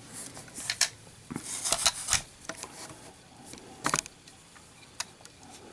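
Scattered small clicks and taps as a metal Zippo lighter is handled and set on a scale to be weighed, with a cluster of them a little over a second in and single ones near the middle and end.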